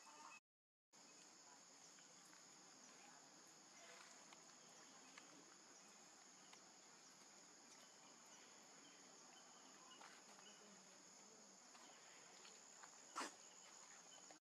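Faint, steady high-pitched insect chorus, like crickets or cicadas. It cuts out completely for about half a second near the start, and there is a single sharp click near the end.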